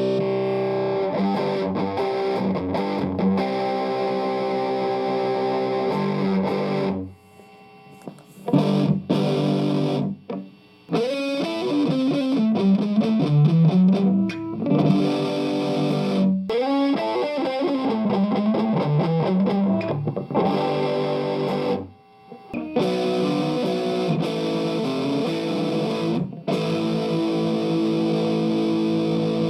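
Electric guitar played through an overdriven Marshall 50-watt guitar amplifier: ringing held chords, then a run of gliding single notes and bends, then held chords again, with a few brief stops between phrases.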